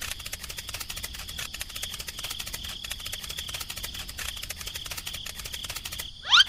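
Added cartoon sound effects: a fast, even run of light clicks over a faint steady high tone, then a quick rising slide near the end that is the loudest moment.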